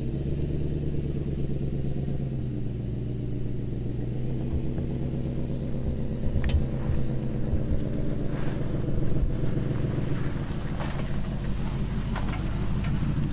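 Vehicle engine running steadily at a low, even hum, with a few faint clicks and knocks.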